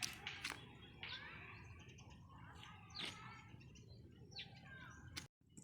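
Faint birds chirping in short gliding calls, with a few small clicks; the sound drops out completely for a moment near the end.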